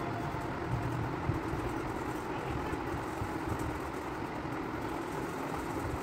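Steady low background rumble with no music over it.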